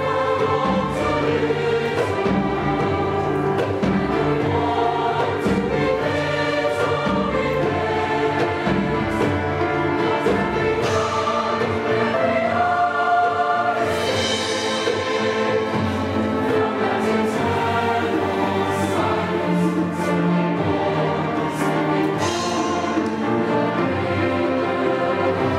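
Middle-school chamber choir singing in sustained harmony, accompanied by a string orchestra of violins and cellos.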